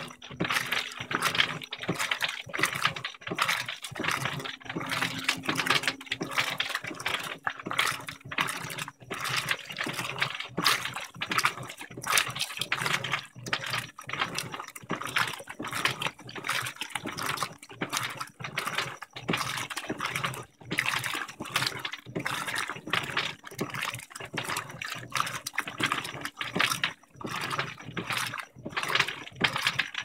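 Electrolux LTM15 15 kg top-load washing machine agitating a load of jeans in soapy water: continuous churning and splashing of water around the agitator, with a low steady hum underneath.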